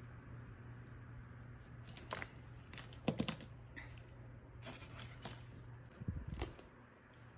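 A paper planner page being handled: rustling and sliding across a desk mat, with a few short taps and knocks, the loudest about three seconds in and again about six seconds in, over a steady low hum.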